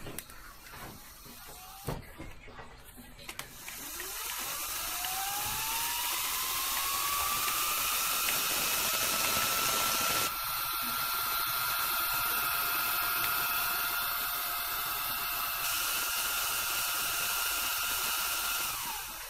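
Small electric motor and gear drive of a radio-controlled crawler crane running: a whine that rises in pitch as it spins up over a few seconds, holds steady with a gritty gear noise, then drops away near the end. A few light clicks come before it starts.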